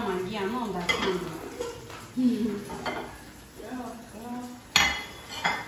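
Metal cooking pots and utensils being handled: a few sharp clinks and knocks, the loudest two near the end, between low murmured voices.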